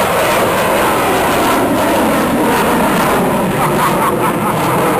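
Fighter jet climbing steeply overhead, its engine noise a loud, steady rushing roar.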